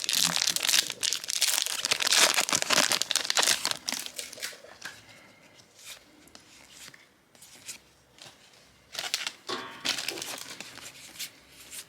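Foil booster pack wrapper crinkling and tearing as it is opened by hand: a dense crackle for the first few seconds, quieter for a while, then another short bout of crinkling near the end.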